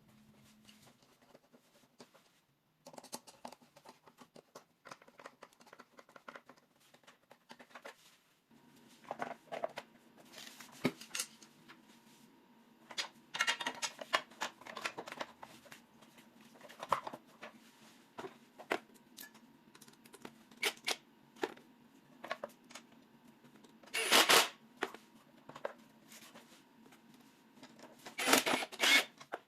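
Scattered clicks, taps and rustling of objects being handled, over a faint steady low hum, with two louder rustling or scraping bursts near the end.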